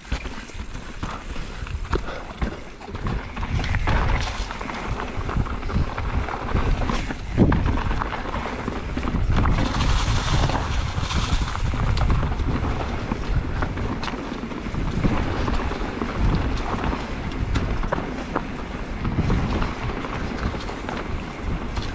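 Mountain bike riding fast over rough singletrack: a steady low rumble of tyres on dirt and rock, with irregular knocks and rattles from the bike.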